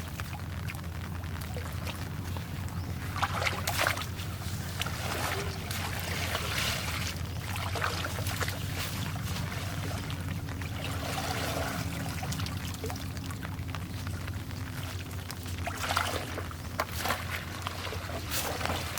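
Water splashing and pouring in several separate bursts over a steady low rumble.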